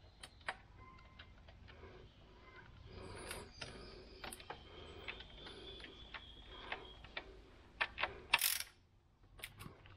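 Faint, irregular clicking and light metal taps of a hand tool turning a small bolt into an engine's cylinder head, with a short, sharper scrape about eight seconds in.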